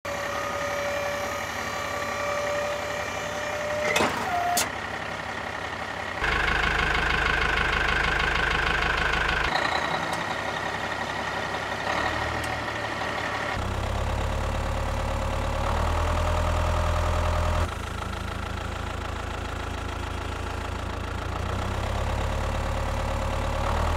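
Truck engine running, idling and revving in spells that change abruptly every few seconds, with two sharp knocks about four seconds in.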